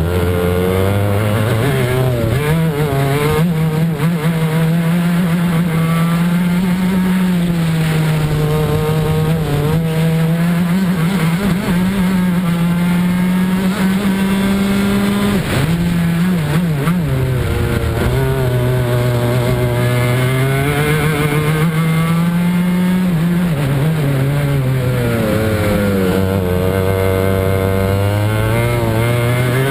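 Club 100 racing kart's engine heard onboard at racing speed, holding a high pitch along the straights, dropping sharply when the driver lifts and brakes for corners about halfway through and again near the end, then climbing back as it accelerates out.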